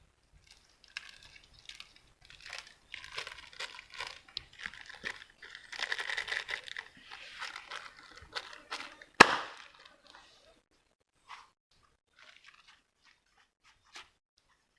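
Crinkling, rustling handling noise with many small crackles, thickest in the middle, and one sharp click near the nine-second mark; scattered faint ticks follow.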